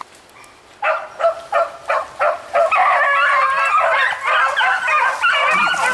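A pack of hunting dogs baying as they run a hare's track. A few single barks start about a second in and build into a continuous chorus of many dogs from about halfway.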